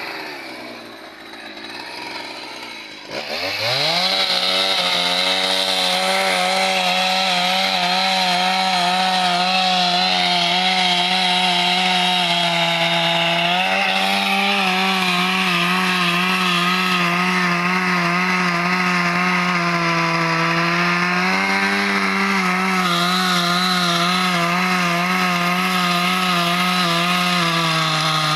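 Husqvarna two-stroke chainsaw, quieter at first, then revved up sharply about three seconds in and held at high revs, its pitch dipping and recovering slightly as it cuts through eucalyptus wood.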